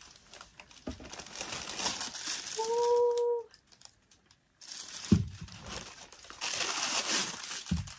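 Tissue paper rustling and crinkling as a pair of sandals is unwrapped in a shoebox, with a short pause near the middle and two low knocks in the second half.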